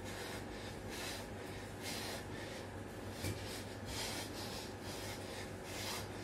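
A man breathing hard with short, forceful breaths about once a second while doing repeated push-ups, the breathing of heavy exertion. A steady low hum runs underneath.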